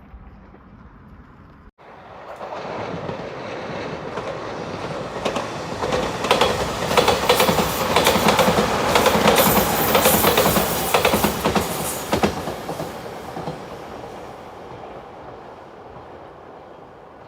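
Train passing over a level crossing. Its rush builds up, then rapid clickety-clack of the wheels over rail joints is loudest for several seconds in the middle, and the sound fades away as the train recedes.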